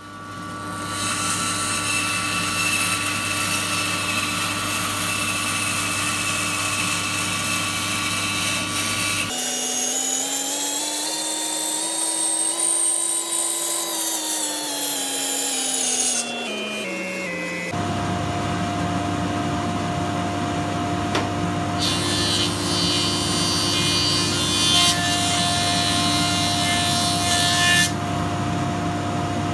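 Woodworking machines running one after another. First comes a steady machine hum. Then comes a stretch of about eight seconds where the whole sound rises and falls in pitch. Then a thickness planer runs, with a harsher cutting hiss for about six seconds near the end as a board goes through.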